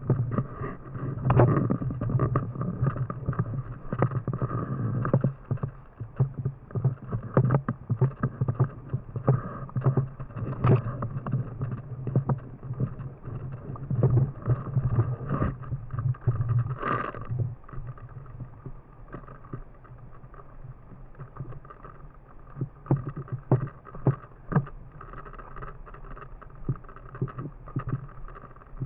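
Low rumbling noise on the microphone with many irregular sharp clicks and pops scattered throughout.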